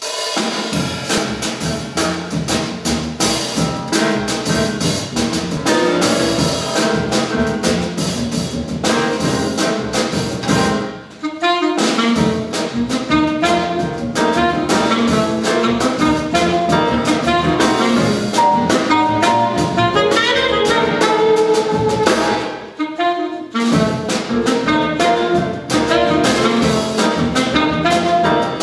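Jazz quartet of saxophone, piano, double bass and drum kit playing a blues. The band breaks off briefly twice, just before 12 seconds and again about 23 seconds in.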